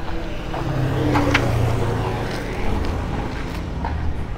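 A vehicle engine running close by, its hum swelling from about a second in and easing off again, as with a vehicle passing on the road. A few light clicks sound over it.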